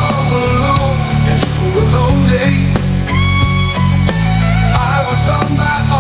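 Instrumental break of a rock song: a guitar plays a melodic line over a driving bass guitar line, with a note held briefly about halfway through.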